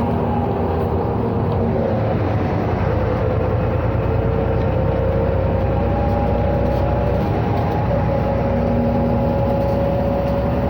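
Ikarus 260 bus's diesel engine running steadily while the bus is driven, with engine tones drifting slightly up and down in pitch over a continuous rumble of engine and road noise.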